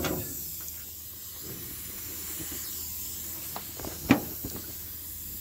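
A removed truck clutch pressure plate and its parts being handled and set down. There are a few light taps and one sharp knock about four seconds in, over a steady hiss.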